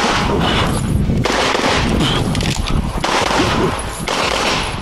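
CZ Shadow 2 9mm pistol firing a rapid string of shots, with a few brief breaks between strings.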